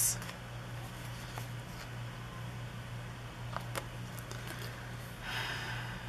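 Light handling of paper sticker sheets at a desk: a couple of faint clicks midway and a brief rustle near the end, over a steady low hum.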